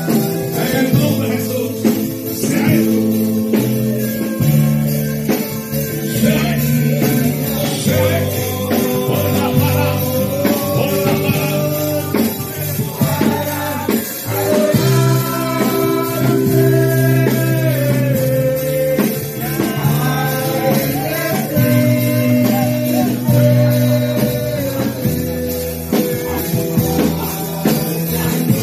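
Worship music: voices singing a song over a band accompaniment, steady and loud.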